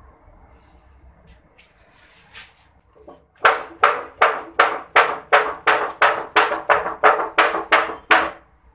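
Charcoal in a metal brazier being fanned to get it burning: a run of about fourteen quick whooshing strokes, about three a second, starting some three seconds in.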